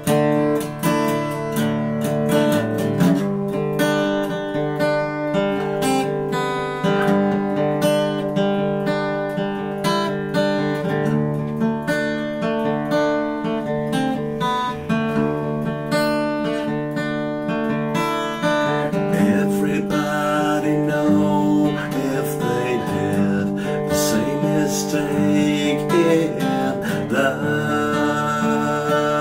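Steel-string acoustic guitar strummed steadily in chords through an instrumental passage of a song, with a man's singing voice coming in over it in the last ten seconds or so.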